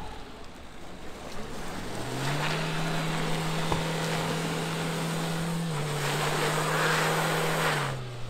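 Dacia Duster's 1.5 dCi four-cylinder diesel revving up about two seconds in and held at high revs as the 4x4 pulls up a muddy, snowy slope, with the tyres struggling for grip. There is a steady rushing of tyres in wet mud and slush beneath it; the revs dip slightly near six seconds and fall away near the end.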